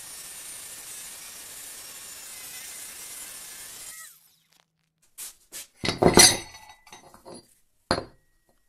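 Cordless angle grinder cutting through the steel of an old car leaf spring, a steady hiss that stops about four seconds in. Then a handful of sharp metal clinks and knocks, the loudest about six seconds in.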